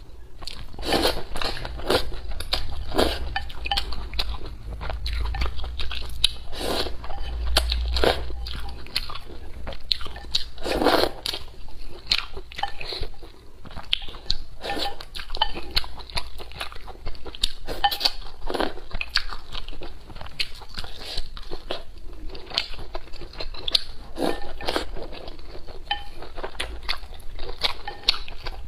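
Close-miked eating: sweet potato glass noodles being slurped and chewed, with many irregular wet smacks and clicks of the mouth.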